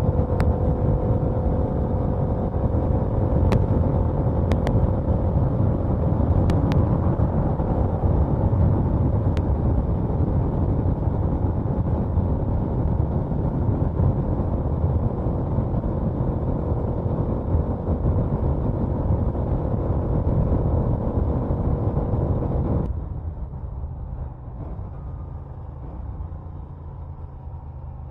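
Norton Commando 961 air-cooled parallel-twin engine running steadily at a constant note, then about 23 seconds in a cut to a quieter, lower-pitched engine sound.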